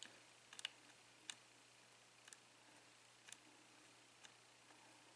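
Faint, sharp clicks about once a second from a lock pick working the pins of an ABUS 5-pin euro cylinder, while pin 1 is still giving feedback and has not yet set.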